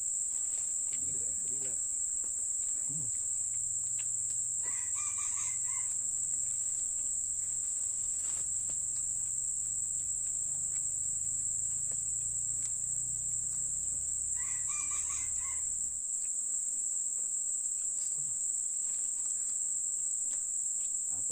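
Steady high-pitched insect drone from the surrounding forest, with a bird calling twice, about five and fifteen seconds in, each call lasting a little over a second.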